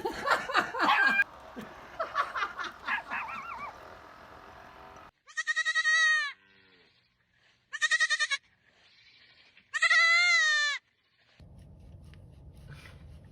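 A bleating farm animal gives three long, wavering bleats, each about a second long, a couple of seconds apart, after a jumble of louder noise in the first few seconds.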